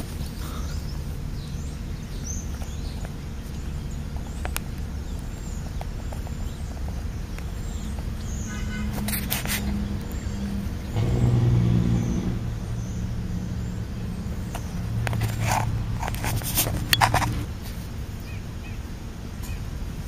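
Road traffic: the low hum of passing vehicles, swelling loudest a little past the middle and again a few seconds later, with a few sharp knocks close to the microphone.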